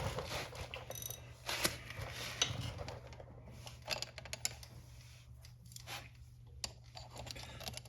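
Scattered small clicks and taps of metal parts being handled as a motorcycle chain press tool and master link are fitted together, over a steady low hum.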